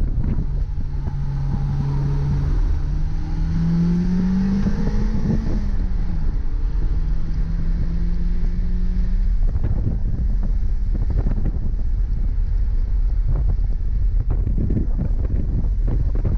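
BMW E30 M3's S14 four-cylinder engine heard from inside the cabin during a track lap, under heavy wind and road rumble. Its note climbs steadily for about five seconds, drops suddenly, holds steady for a few seconds, then fades into the rumble from about ten seconds in.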